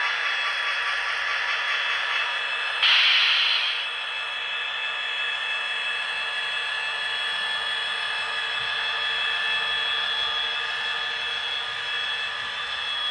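HO-scale Athearn Genesis SD45-2 model diesel locomotive running on the track, giving a steady drone of several held pitches. A short, loud hiss comes about three seconds in.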